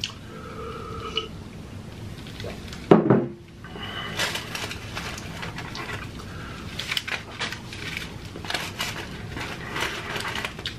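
Close-miked mouth sounds: a drink from a wine glass, one loud low sound about three seconds in, then a run of short wet clicks and lip smacks.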